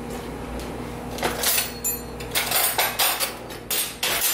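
Dishes and utensils clattering as they are handled on a kitchen counter: a quick run of knocks and clinks, thickest in the second half.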